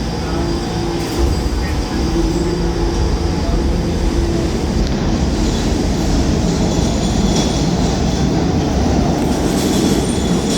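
New York City subway train running on the rails: a loud, steady rumble of wheels and running gear that grows louder about a second in.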